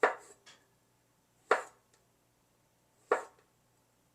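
Kitchen knife slicing through portobello mushroom stems and hitting the cutting board: three sharp cuts about a second and a half apart.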